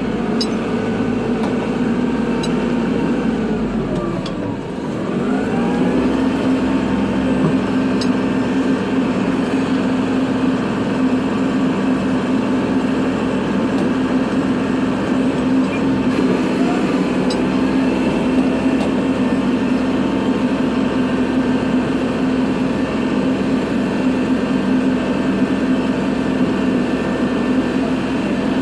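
Kubota tractor's diesel engine running steadily under work. About four seconds in, the revs drop briefly and then climb back up.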